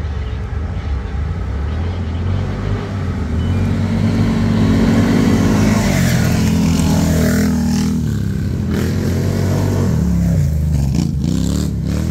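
ATV engine running under throttle. The revs climb about four seconds in, ease off, then pick up again near the end.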